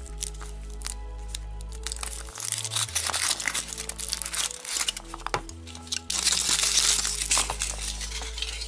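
Thin foil wrapper of a Kinder Surprise chocolate egg crinkling and tearing as it is peeled off by hand, in two spells, the second the loudest, over background music with a steady bass line.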